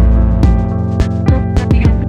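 Background music: an electronic track with plucked guitar, a steady beat and heavy bass, which thins out about half a second in.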